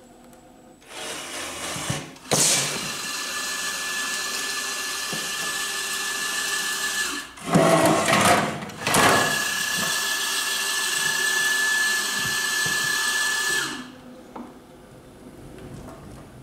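Electric motors of a homemade wheeled pickup robot running with a steady whine while it moves and works its retrieval bin. There is a louder, rougher stretch about halfway through, and the motors stop near the end.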